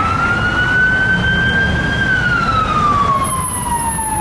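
Fire apparatus siren wailing. Its pitch climbs slowly to a peak about two seconds in, then glides steadily down, over the low rumble of the passing vehicle.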